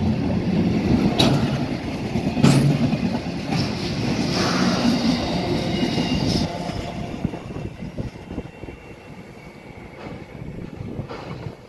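Freight train's container wagons rolling past at close range, the wheels rumbling and clicking over the rail joints, with a brief high wheel squeal near the middle. The sound fades away after about seven seconds as the end of the train goes by.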